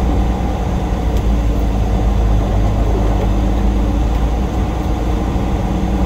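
Semi-truck's diesel engine running steadily at low revs, a deep even rumble with no change in pitch.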